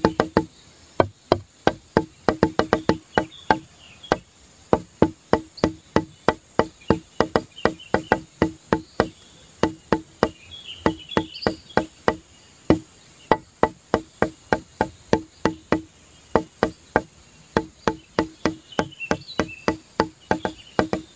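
Background music: a quick, uneven run of short pitched wooden-sounding plucks on the same note, with faint high chirps now and then.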